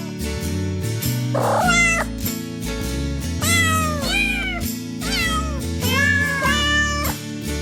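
Kittens meowing, about six short cries that fall in pitch, over background music with a steady beat.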